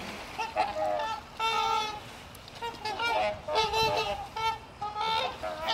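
Several swans calling, a rapid run of short pitched calls that overlap at times, with one longer call about one and a half seconds in.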